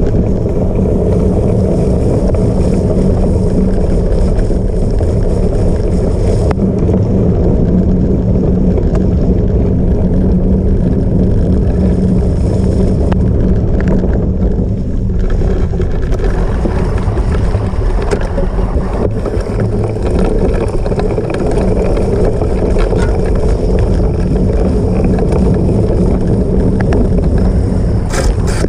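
Steady loud rumble of a cyclocross bike being ridden over rough ground, with wind rushing over the microphone and a few sharp rattles near the end.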